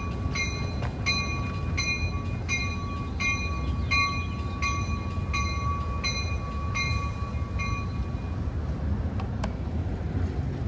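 Amtrak California bilevel passenger cars rolling out of the station with a steady low rumble. A warning bell rings steadily, about one and a half strokes a second, and stops about eight seconds in. A single sharp click comes near the end.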